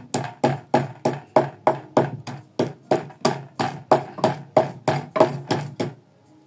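Pestle pounding browned whole spices in a mortar: an even run of sharp knocks, about four a second, that stops about six seconds in.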